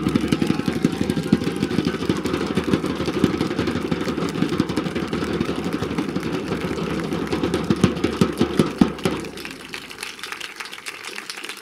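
A steady, loud low-pitched engine rumble, as of a motor vehicle idling close by, which fades out about nine seconds in.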